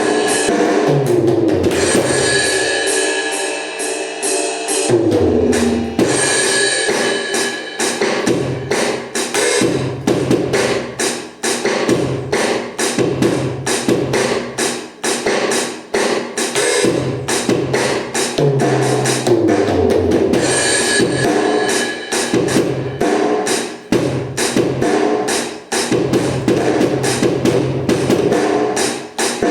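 Seven SD-7000 electronic drum kit played as a busy, continuous drum groove, heard through an amplified speaker, with pitched tones sliding underneath the drum hits.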